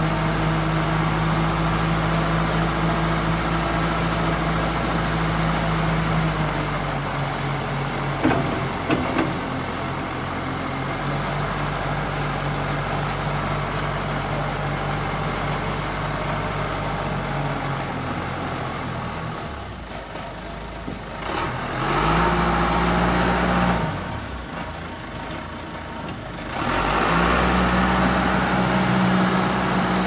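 1989 John Deere 310C backhoe loader's four-cylinder diesel engine running, its speed falling and picking up again twice in the second half. A couple of short knocks about eight seconds in.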